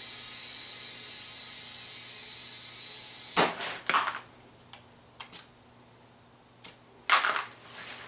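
Compressed air hissing through an air chuck into a motorcycle rear tyre's valve stem, steady for about three seconds while the tyre is inflated. Then short sharp blasts of air as the chuck comes off the valve, a quieter gap with a few faint clicks, and another blast as it goes back on near the end.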